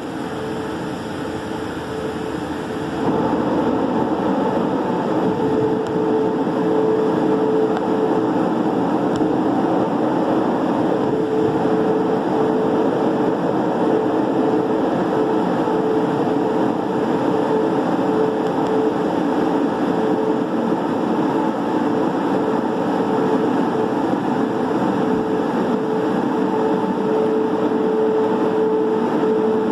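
Christ Genius automatic car wash gantry running: a steady rush of water spray and brushes over a constant machine hum. It gets louder about three seconds in, then holds even.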